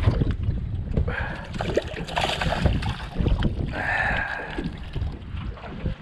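Wind buffeting the microphone on a small open boat, with a few bursts of water splashing and sloshing about a second, two seconds and four seconds in.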